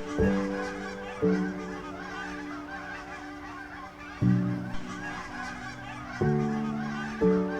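Background music: slow, sustained chords, a new chord struck about every one to three seconds and fading away, over a soft shimmering layer.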